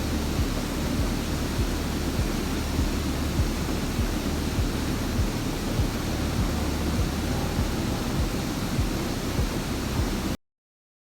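Steady roar of a waterfall, loud rushing water heaviest in the low end. It cuts off abruptly about ten seconds in.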